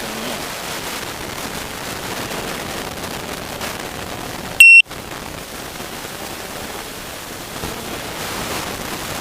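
Steady outdoor noise haze, with one short, loud electronic beep about halfway through, cut off by a brief moment of total silence in the audio.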